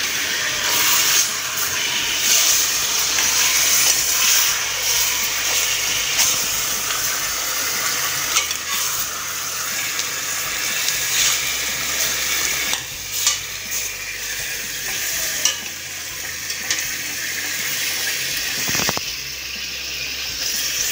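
Seasoned chicken pieces sizzling as they sear in a stainless steel pot while being turned over by hand, with a few knocks and clicks against the pot.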